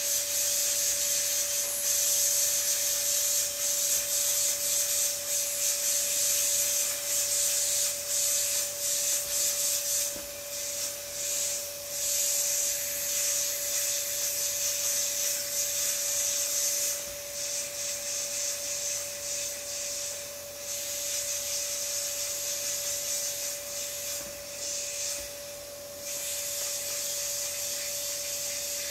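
Air hissing steadily out of an inflatable vinyl swan pool float through its open valve as it deflates. The hiss wavers and dips briefly several times, with a faint steady tone running underneath.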